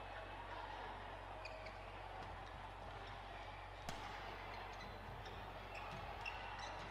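Badminton rally: rackets striking the shuttlecock and shoes squeaking on the court, over a steady hum from the hall. One sharp hit stands out about four seconds in.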